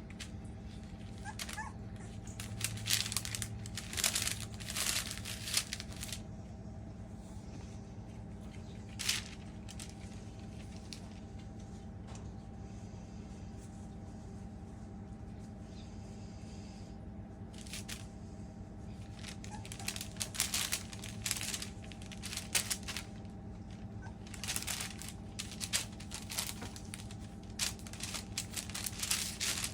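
Baking paper on the floor crinkling and rustling in irregular bursts as Australian Labradoodle puppies step and scramble on it, over a steady low hum.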